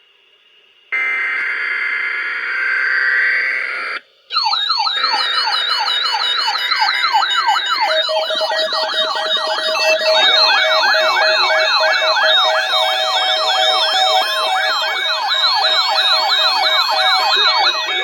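After a short silence, about three seconds of hissing noise, then from about four seconds in several electronic sirens sweeping rapidly up and down at once, layered at different pitches, with a steady tone joining at about eight seconds.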